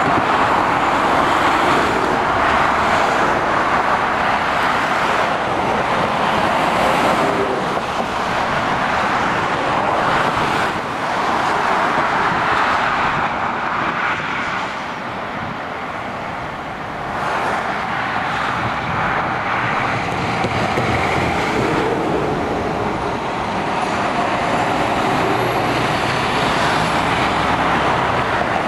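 Motorway traffic of lorries and cars passing: a continuous rush of tyre and engine noise that swells and eases as each vehicle goes by, with a quieter lull about halfway through.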